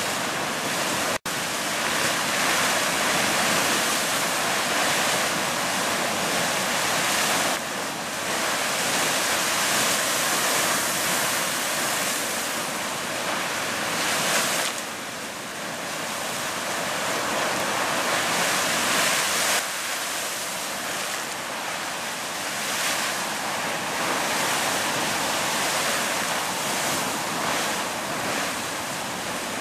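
Fountain Geyser erupting: a steady rush of water and steam jetting up and splashing back down, swelling and easing in slow surges. The sound cuts out for an instant about a second in.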